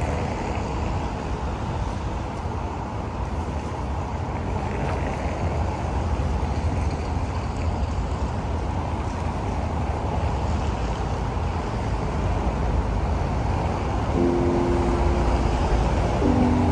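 Steady city street noise with traffic passing. A few short, held musical tones come in near the end.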